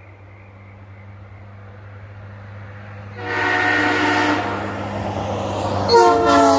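Nathan P3 three-chime locomotive air horn. After a faint fading tail, it sounds a loud, steady chord about three seconds in. Near the end a sharper, louder blast comes in, and its tones sag slightly in pitch.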